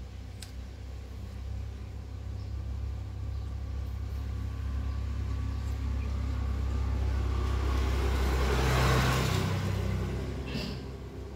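A motor vehicle passing by: a low engine rumble that grows louder, peaks about nine seconds in, then fades away.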